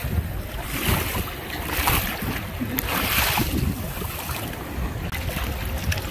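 Sea water splashing around a paddled kayak, in a few hissing surges, over a steady rumble of wind on the microphone.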